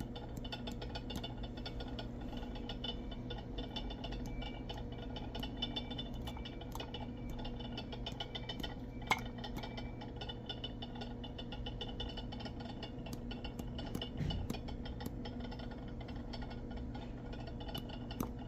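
Small faint taps and clicks of a plastic bottle being tapped and shaken to sprinkle enzyme powder onto a digital scale, over a steady electrical hum.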